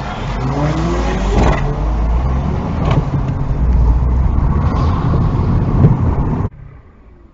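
Car engine pulling away from a standstill, heard from inside the cabin: the revs rise through the first second or so, then carry on through gear changes under a steady low road rumble. The sound cuts off abruptly about six and a half seconds in.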